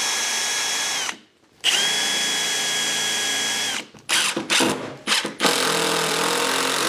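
Cordless drill driving countersunk screws up into wood: a steady motor whine for about a second, a pause, then a run of about two seconds. A few short blips of the trigger follow, and one more run near the end.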